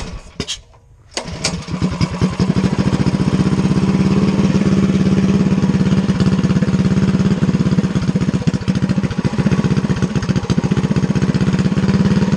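Stage 3 Predator 212 single-cylinder engine, fitted with a performance cam, being restarted: a few brief knocks, then it catches about a second in and settles into a steady, evenly pulsing idle.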